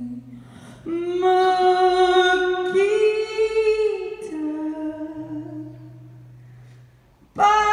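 A woman singing long held notes with no accompaniment, her voice stepping up in pitch about three seconds in, then settling on a lower note that fades away. Right at the end the electric guitar comes in loudly.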